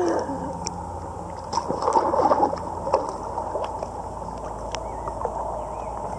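Pool water sloshing and bubbling, heard muffled through the water with the camera at or below the surface, with a louder stretch of splashing and bubbles about one and a half to two and a half seconds in.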